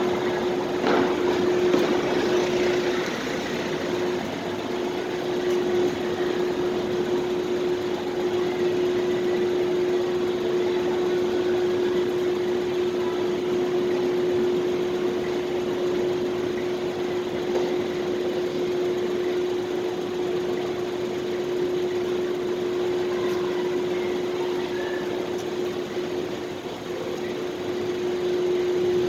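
Steady supermarket parking-lot ambience: an even wash of noise with a constant hum at one pitch.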